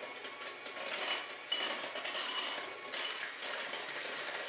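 KitchenAid electric hand mixer running steadily, its wire beaters churning wet banana muffin batter in a glass bowl.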